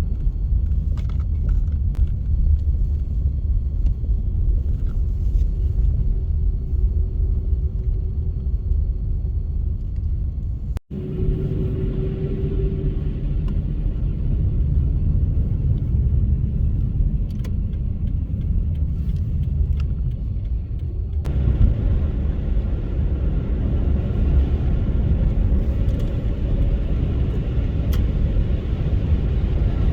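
Car driving, a steady low rumble of engine and road noise that drops out for an instant about eleven seconds in.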